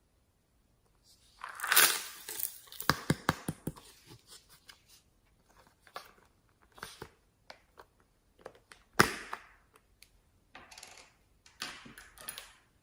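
Slime being worked by hand, giving bursts of sticky clicks, pops and crackles. The densest burst comes about two seconds in, with a sharp one about nine seconds in and another cluster near the end.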